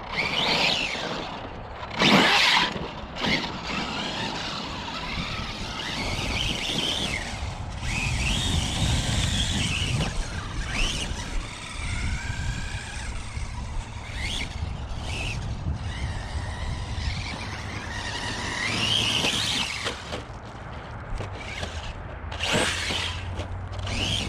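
Arrma Notorious RC truck's brushless motor and drivetrain whining as it is driven, the pitch rising and falling with repeated throttle bursts, with a loud burst about two seconds in. The gear mesh is one the owner thinks sounds a little tight.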